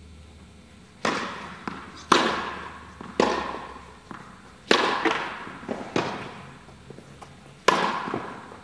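Tennis rally: a ball struck by rackets and bouncing on the court, about six loud, sharp pocks with fainter ones between. Each one rings out with a long echo in an indoor tennis hall.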